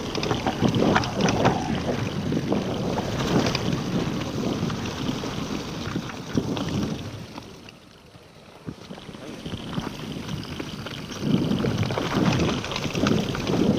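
Scott Genius LT 710 Plus mountain bike riding a dirt trail: tyres rumbling over the ground, the bike rattling and clattering on bumps, with wind buffeting the microphone. It goes quieter for a couple of seconds in the middle, then picks up again.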